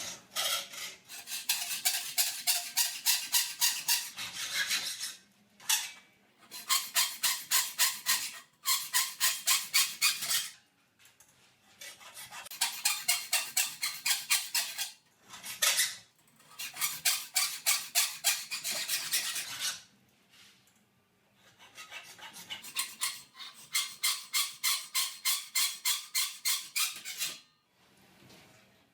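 Hacksaw cutting V cuts into the side of a steel cable tray: quick back-and-forth strokes in several runs of a few seconds, with short pauses between them.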